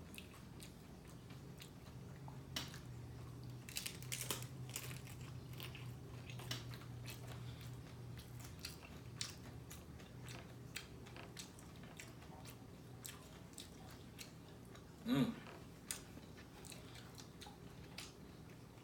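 A person chewing and biting into crunchy oven-baked hard taco shells close to the microphone, with many short crisp crunches throughout. One brief louder sound comes about fifteen seconds in.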